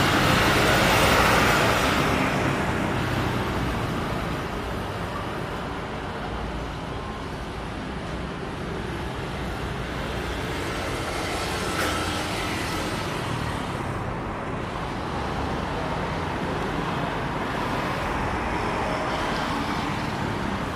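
Boeing 737 MAX 8's CFM LEAP-1B jet engines, loud at first and fading over the first few seconds as the airliner passes on its landing, then a steady rumble.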